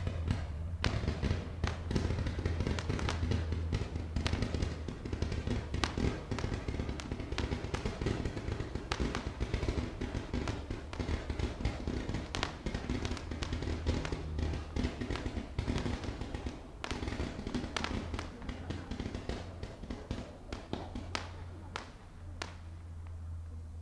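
Fireworks crackling and popping continuously, many small sharp cracks in quick irregular succession, thinning out and dying away about 22 seconds in.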